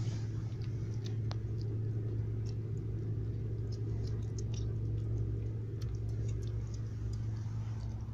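Kittens eating porridge from a tray, with a patter of small wet clicks from their chewing and lapping, over a steady low hum.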